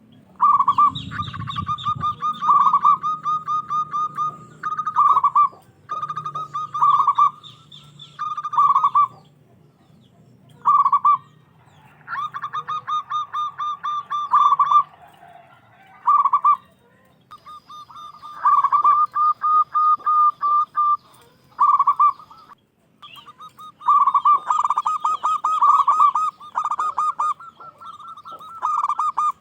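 Zebra dove (local perkutut) cooing: a string of rolling, rapidly pulsed coo phrases, each a second or two long, repeated with short pauses between them.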